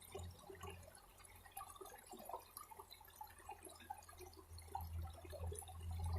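Faint water sounds: irregular trickling and dripping, with a low steady hum that grows louder near the end.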